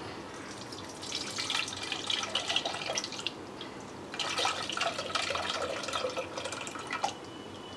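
Tamarind water splashing and trickling as it is poured from one steel bowl into another, in two spells: from about a second in and again from about four seconds in.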